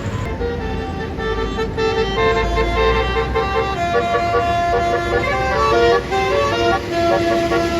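Bus 'basuri' telolet air horn playing a fast melody of short stepped notes with a few longer held ones, over the low rumble of the bus.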